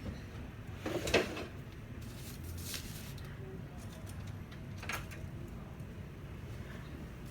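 Plastic printer parts being handled during disassembly: a clatter about a second in, then a few single sharp clicks, over a low steady hum.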